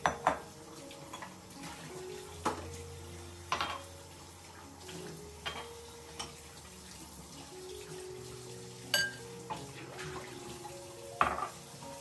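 Dishes being washed under a running kitchen tap: glasses and a glass bowl clink and knock against the sink and the stone counter, several sharp clinks standing out, the loudest near the end. Soft background music plays underneath.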